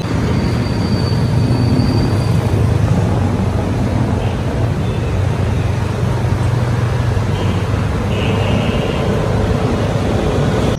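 Steady engine and road noise from a vehicle moving through busy city traffic, with a constant low hum.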